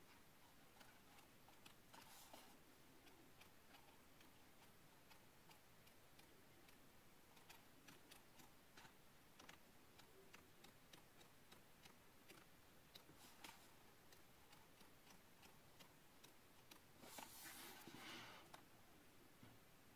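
Faint ticks of paperback pages flicking off a thumb one after another as the book is leafed through, with a louder papery rustle near the end as pages are turned over.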